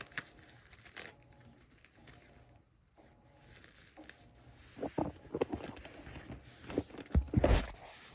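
Panty-liner packaging being opened and handled: scattered rustles, crinkles and small taps, with a near-quiet pause of a few seconds before a busier run of rustling in the second half.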